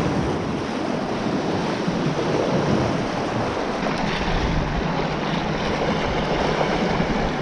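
Sea washing and lapping against the shore rocks, with wind buffeting the microphone in a steady rumble.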